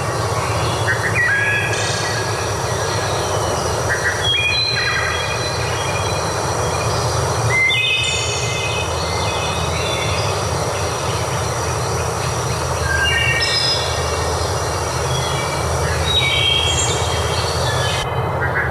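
Steady rush of running water, with birds calling over it in short whistled phrases every second or two.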